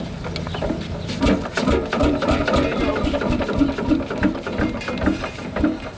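Single-cylinder hot bulb semi-diesel engine of an HSCS G-35 tractor running. About a second in, a slow, uneven beat of knocks sets in, roughly three a second.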